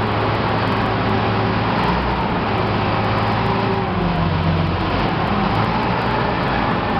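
Wheel loader's diesel engine running hard as it works its bucket over a truck bed: a loud, steady engine drone whose pitch shifts slightly a few times partway through.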